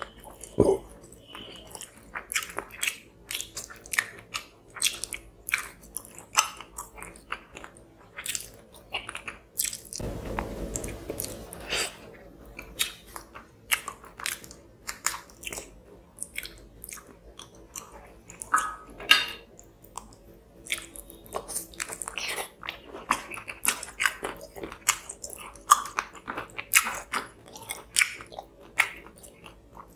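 A person chewing rice and tilapia fish curry close to the microphone, with a steady stream of wet smacking clicks and crunches. About ten seconds in there is a stretch of steadier rushing noise lasting roughly two seconds.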